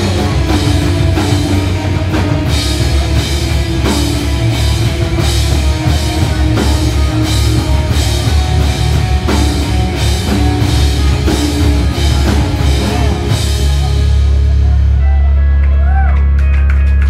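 Instrumental rock trio of electric guitar, bass guitar and drum kit playing loud and driving. About fourteen seconds in the drumming stops and a deep low note is held, ringing on under a few pitch-bending guitar notes.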